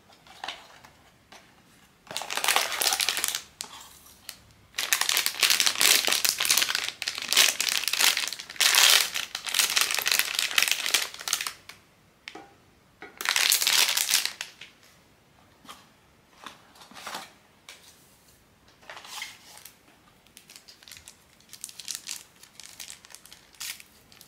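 Crinkly plastic packaging of a blind-box art-toy figure being handled. It crinkles loudly in several long bursts in the first half, then in softer, scattered crinkles.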